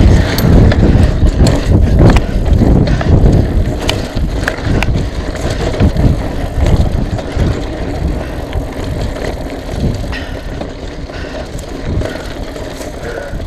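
Mountain bike riding over a dirt and rock trail: a steady rumble from the tyres with sharp knocks and rattles from bumps. It is loudest in the first few seconds and eases off after.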